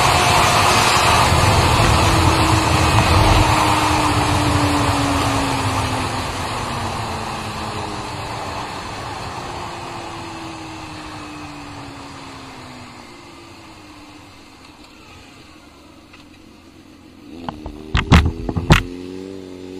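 Sport motorcycle slowing from high speed with the throttle closed: the rush of wind and the engine note fall steadily in pitch and loudness. Near the end comes a short burst of sharp, loud cracks with quick revs.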